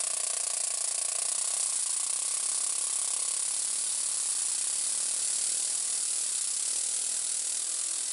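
Small single-cylinder experimental engine with a ball-valve inlet and no exhaust valve running fast. Its exhaust escapes through a 1 mm hole as a steady high hiss with a rapid mechanical rattle. A pitched hum in it fades out in the first couple of seconds.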